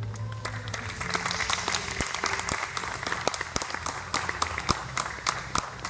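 A small audience clapping as the dance music ends about a second in.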